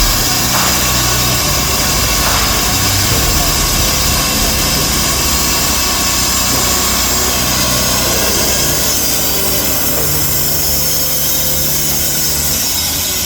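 A machine's engine running steadily and loud, with an even wash of noise over it.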